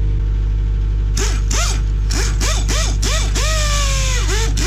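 A pneumatic wrench on an air hose runs in a string of short trigger bursts starting about a second in. Each burst spins up and winds down with a hiss of exhaust air, and one held burst past the three-second mark slowly drops in pitch. A skid steer's engine runs steadily underneath.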